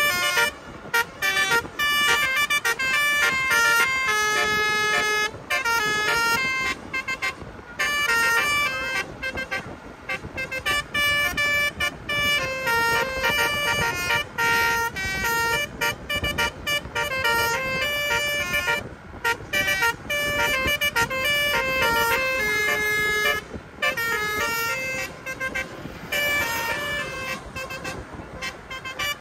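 Indonesian 'basuri' musical bus horns playing tune-like runs of notes that step up and down in pitch, sounding in stretches with short breaks between them.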